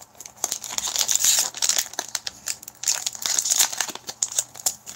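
Foil trading-card pack being torn open and crinkled by hand, a dense run of crackling that goes on throughout.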